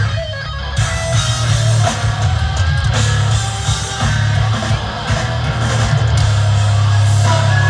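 Rock band playing live: guitar over a drum kit, loud and continuous.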